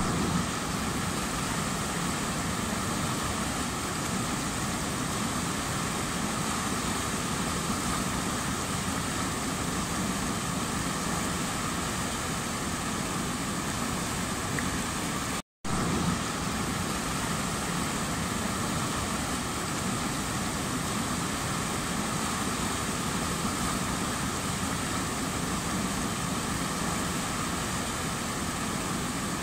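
Munzur River whitewater rapids rushing over and around a boulder: a steady, unbroken wash of water noise. The sound drops out for a split second about halfway through.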